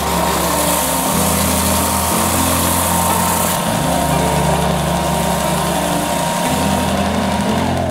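Benchtop oscillating belt sander running with a steady whine while the edge of a solid ash board is sanded against the belt; the motor stops near the end.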